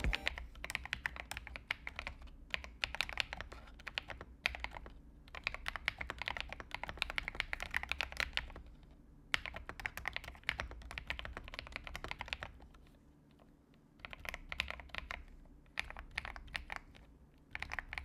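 Typing on an Alice-layout mechanical keyboard: rapid key clacks in bursts of a few seconds each, broken by short pauses.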